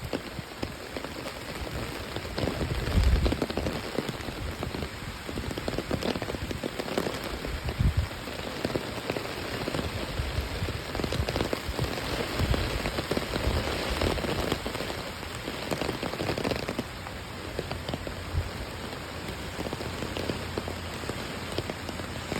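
Steady rain from a hurricane's outer band pattering on surfaces, with a few louder low rumbles, the strongest about three seconds in.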